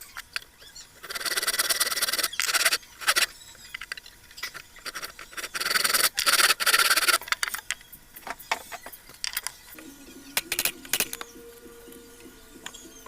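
Hand tools cutting notches in a wooden piece: long rasping strokes twice, with scattered sharp knocks between them.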